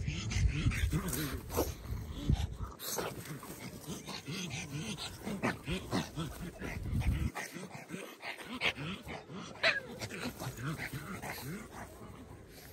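Pugs making many short grunts and growls as they play in the grass. Wind rumbles on the microphone for the first few seconds and again about six seconds in.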